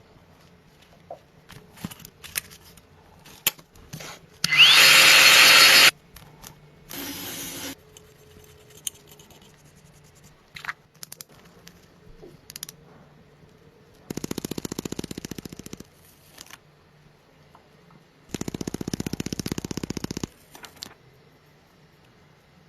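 Power tools run in short bursts among light clicks and taps. A loud whirring burst of about a second and a half comes about four seconds in, then a shorter, quieter one. Later come two rapid rattling bursts of about two seconds each.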